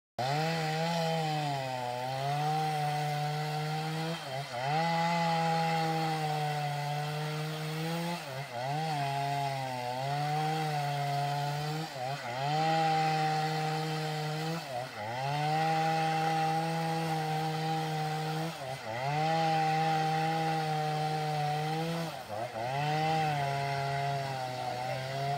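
Chainsaw running at high speed while cutting wood. Its pitch sags sharply and recovers several times, about every two to four seconds.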